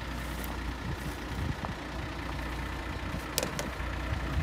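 Truck engine idling steadily, a low even hum, with one short click about three and a half seconds in.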